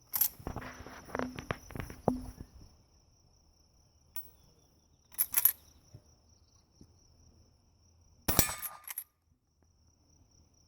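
1860 Henry lever-action rifle firing three shots several seconds apart, the first near the start followed by about two seconds of rattling clicks with a short ringing clang as the lever is worked and steel targets are hit. A steady high insect buzz runs underneath.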